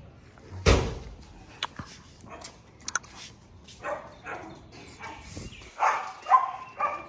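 A dog barking several times, with a few short clicks in between.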